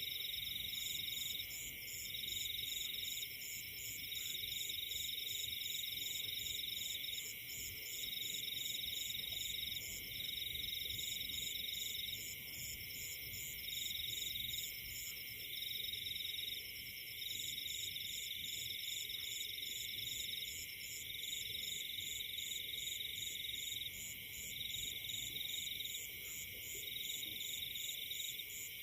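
Forest chorus of insects and frogs calling together: a steady high trilling, a second trill that breaks off briefly every second or two, and a higher rhythmic chirping at about three or four pulses a second.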